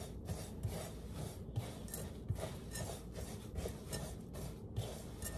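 Dry rolled oats, chia seeds and sweetener being stirred with a spatula in a glass mixing bowl: faint, repeated scraping and rustling strokes, a little over one a second.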